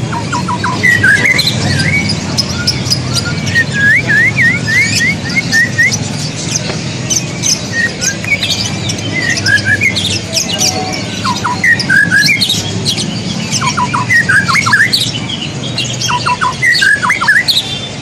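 White-rumped shama (murai batu) singing in its cage: a varied run of short whistles, quick up-and-down glides and sharp chirps, with brief pauses between phrases, over a steady low background murmur.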